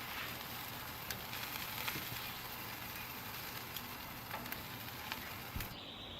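Bacon-wrapped chicken tenders sizzling on a Weber grill, a steady hiss with scattered pops and crackles as the bacon chars. The sizzle breaks off near the end.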